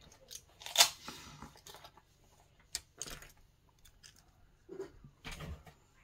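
A few sharp clicks and light knocks from small objects being handled on a work table, the loudest about a second in.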